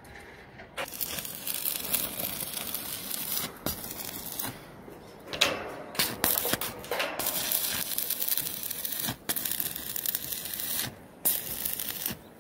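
Stick-welding arc crackling steadily as steel square tubing is welded, in several runs broken by short pauses.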